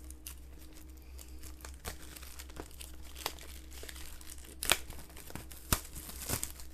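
Plastic shrink-wrap crinkling and tearing as it is pulled off a Blu-ray steelbook case. Scattered small crackles run throughout, with two sharper clicks in the second half.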